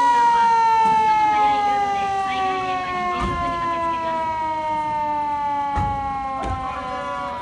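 A fire pump truck's siren winding down, one long tone whose pitch falls slowly and steadily as it fades. Three dull thumps come through in the second half.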